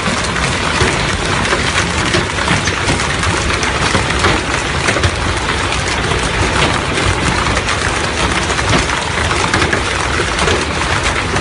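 Torrential rain driven by strong wind, a loud, steady hiss with a dense patter of drops hitting close by.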